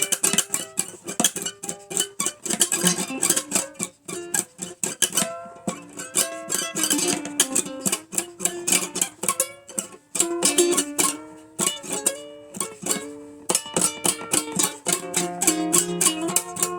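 Solo acoustic plucked-string instrument playing an old-time blues tune, with rapidly picked notes and no singing.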